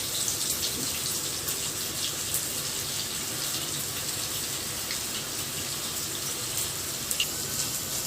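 Kofta (minced-meat balls) frying in butter and a little oil in a deep pan: a steady sizzle with many small crackling pops as the meat sears.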